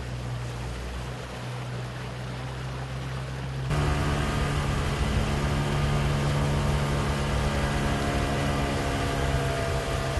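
An engine running steadily with a low hum. About four seconds in the sound shifts abruptly to a louder, more tonal engine note, which holds steady.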